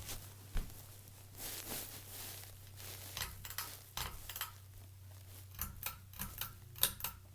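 Hunter Augusta ceiling fan running forward on low speed with a steady motor hum. Irregular sharp clicks and light metallic ticks sound over it, thickest near the end.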